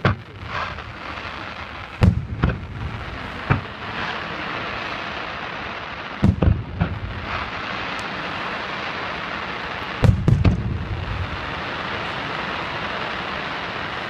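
Fireworks display: aerial shells bursting with deep booms every one to four seconds, some in quick pairs, over a steady hiss.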